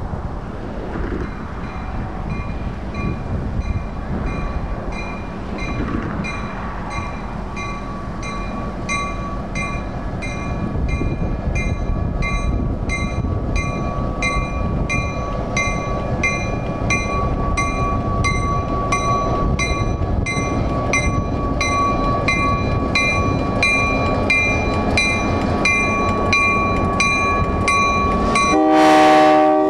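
Diesel locomotive approaching at low speed, its engine rumble growing louder as a bell rings steadily about twice a second. Near the end the locomotive sounds a loud horn blast as it draws level.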